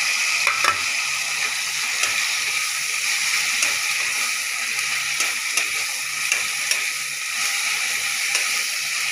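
Grated tomato and masala paste sizzling steadily in hot oil in a steel kadai, stirred with a metal spatula that scrapes and clicks against the pan now and then.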